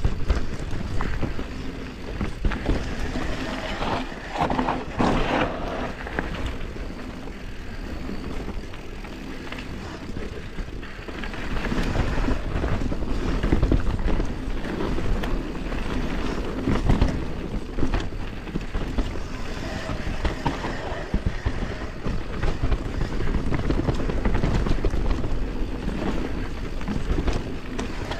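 YT Capra Core 3 MX mountain bike riding down a rough bike-park trail: tyres rolling over dirt and rocks, with constant clattering and knocking of the bike, over a low rumble.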